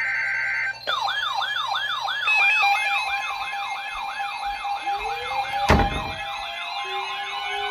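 The tail of a weather-radio alert's data header, a short burst of buzzing warble. Then several NOAA weather alert radios sound their alarms together: a fast, repeating siren wail about three times a second over steady beeping tones. A slower rising tone joins about five seconds in, and there is a sharp click just before six seconds.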